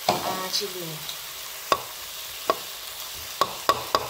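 Metal spatula knocking and scraping against a wok as chili paste is stirred, a few separate strikes at first, then quicker ones near the end. Underneath, the blended dried-chili paste with belacan sizzles steadily as it fries in oil.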